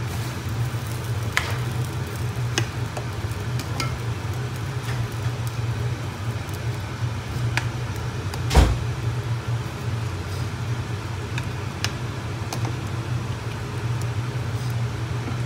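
A spoon stirring curry in a stainless steel pot, making scattered light clicks against the pot and one louder knock about halfway through, over a steady low hum.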